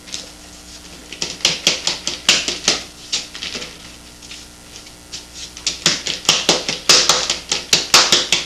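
Dried seeds and membrane being scraped out of the inside of a hollow dried gourd with a metal tool. Quick, rough scraping strokes come a few per second in two runs, with a pause around the middle.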